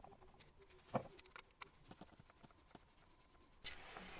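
Faint clicks and taps of small hardware and a wooden jig being handled on a wooden workbench, with one sharper tap about a second in. A soft, even handling noise starts near the end.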